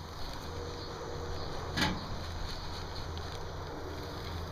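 A low steady hum sets in about half a second in, with a sharp click a little under two seconds in.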